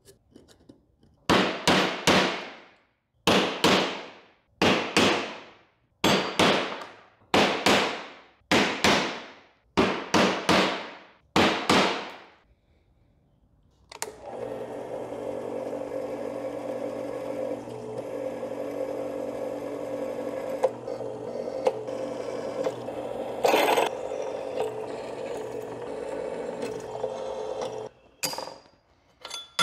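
Steel plate being scribed with the jaw tips of digital calipers: a run of repeated scratching strokes, each fading out. Then a bench drill press runs steadily for about fourteen seconds, drilling through the scribed steel, and stops near the end with a metallic clatter.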